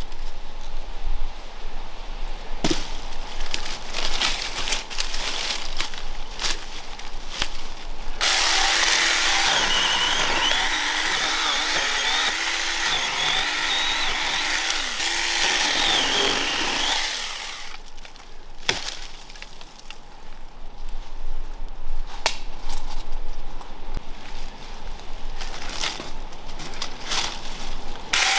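Miniature chainsaw cutting through thick English ivy roots, its motor running steadily for about nine seconds with a whine that wavers under load. Before and after the cut, irregular snaps and knocks.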